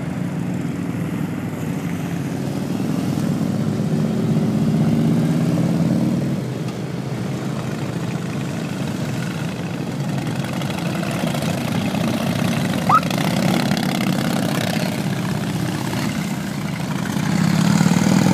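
A column of cruiser motorcycles riding past one after another, a low engine sound swelling as bikes go by, loudest about four to six seconds in and again at the end. A brief rising squeak cuts through about two-thirds of the way in.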